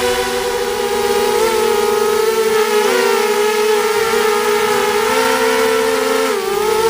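ZMR 250 racing quadcopter's brushless motors (EMAX 2204 2300kv on 5030 props) whining in flight. Several close pitches shift up and down with throttle and dip briefly near the end.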